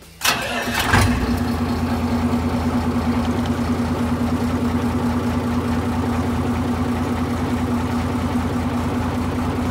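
Iseki 8020 tractor's diesel engine started: the starter cranks for under a second, the engine catches about a second in, then settles into a steady idle.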